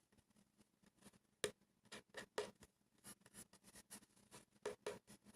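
Faint, scattered small taps, clicks and brief rustles of hands handling stickers and grip tape on a skateboard deck, with the sharpest tap about a second and a half in.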